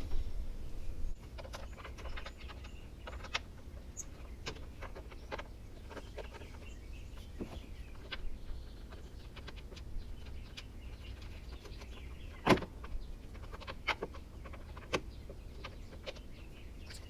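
Scattered light clicks and taps of a mower deck's belt covers and their bolts being handled and fitted, with one sharper knock about twelve and a half seconds in, over a low steady hum.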